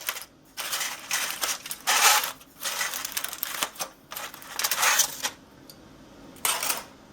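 Takeout food packaging being handled and opened: several bursts of crinkling and clicking in a row, then a quieter stretch and one short burst near the end.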